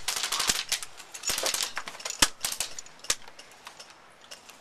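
Airsoft guns firing in several short strings of rapid shots with brief pauses between, dying away in the last second.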